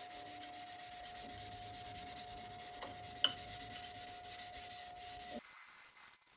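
A shop towel rubbing Yorkshire Grit abrasive paste onto a madrone bowl turning on a wood lathe: a fine, fast rubbing hiss over the lathe's steady motor whine, with a sharp tick about three seconds in. Both cut off abruptly a little after five seconds.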